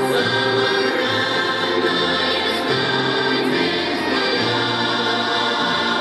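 Russian folk ensemble of women's and men's voices singing together in held chords, with a low part underneath that moves to a new note every second or so.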